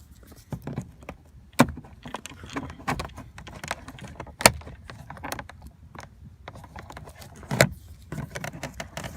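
Scattered clicks, rattles and knocks of hands and tools working at a pickup truck's door panel and its plastic trim, with four sharper knocks spread through.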